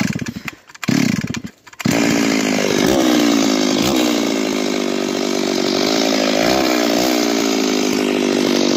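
Stihl 066 two-stroke chainsaw being started: two short bursts, then the engine catches about two seconds in and keeps running steadily, its pitch shifting briefly a few times.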